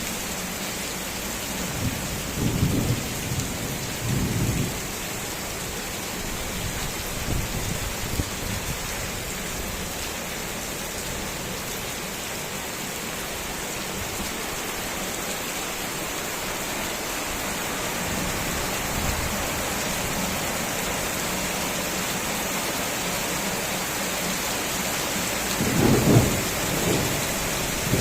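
Heavy rain falling steadily, with short low rumbles a couple of seconds in, again around four and eight seconds, and the loudest one near the end.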